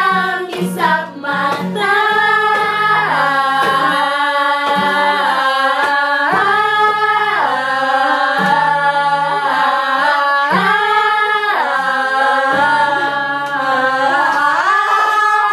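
A group of girls singing together in long held notes that step up and down, with a small acoustic guitar strummed underneath.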